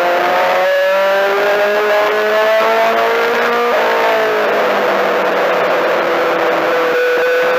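Four-cylinder Mini-Stock race car engine heard from inside the car at racing speed. It climbs in pitch under acceleration, breaks and drops about four seconds in as the throttle comes off, holds steady, then starts climbing again near the end.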